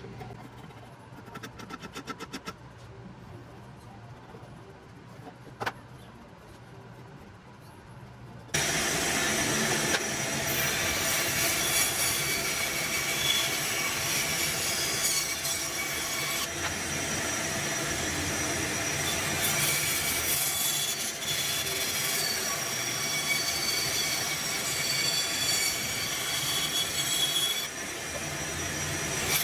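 Steady abrasive grinding against the hatchet, with high squealing tones over the rough noise; it starts abruptly about eight seconds in, after a few faint clicks.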